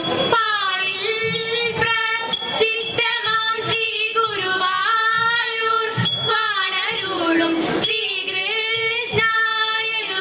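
Women's voices singing a Thiruvathira song, a Malayalam folk melody with long held, wavering notes, and a few sharp hand claps on the beat.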